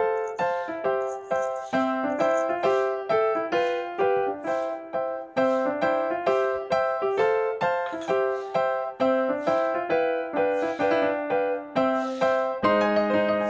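Background music: a bright piano or electric-piano tune of short notes over a light percussion tick about twice a second, moving to fuller, lower held chords near the end.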